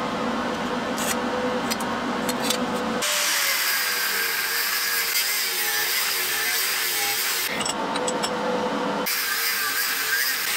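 Angle grinder with a thin cut-off disc cutting through thick steel flat bar, its whine wavering as the disc loads up in the cut. The cutting starts abruptly about three seconds in, breaks off briefly near eight seconds, and starts again. Before it come a few light ticks over a steady hum.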